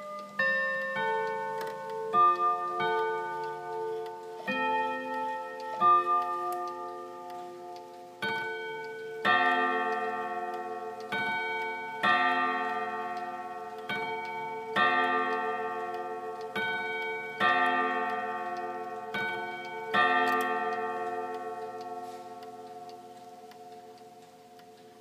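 Antique ODO 121 French chiming clock's hammers striking its chime rods. It plays a chime tune of uneven notes, then strikes ten notes in evenly spaced pairs, the hour strike. The rods ring on and fade near the end.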